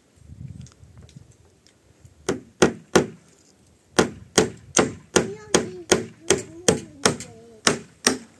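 Hammer blows on wooden planks: three strikes about two seconds in, then a steady run of blows at about two to three a second.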